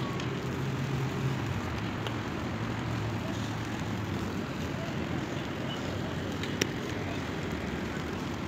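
Steady outdoor background noise: a low rumble with a hiss over it, like distant traffic and wind. A single sharp click comes about six and a half seconds in.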